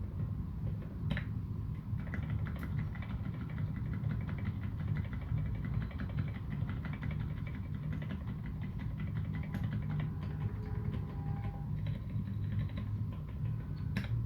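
Fast typing on a TX1800 mechanical keyboard with modded Cherry MX Silent Black switches and SA keycaps: soft, muted keystrokes in a quick run from about two seconds in until near the end. A steady low rumble sits underneath and is louder than the keys.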